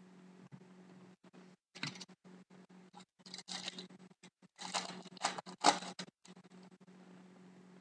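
Irregular crinkling and rustling of a foil trading card pack being torn open and its cards handled, in short bursts over a few seconds, over a steady low electrical hum.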